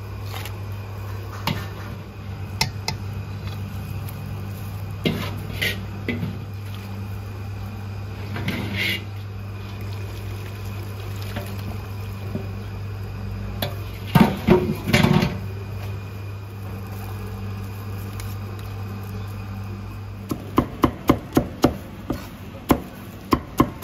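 Metal utensils clinking and clanking against a stainless steel cooking pot over a steady low hum, the loudest a cluster of clanks about halfway through. Near the end a cleaver starts chopping ginger on a wooden chopping block in a steady run of sharp chops.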